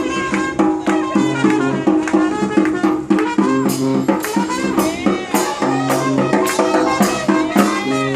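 Brass band playing jazz: horns playing a moving line over a steady beat of drums and cymbals.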